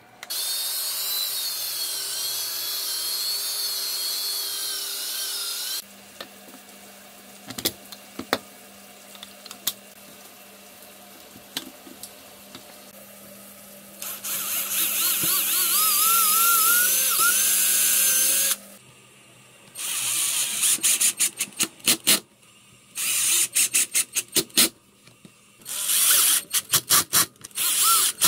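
Cordless drill running in several stretches: a long run at the start, a second run with its pitch rising as it bores a pilot hole into a hardwood frame, then a string of short trigger bursts as it drives screws into the frame.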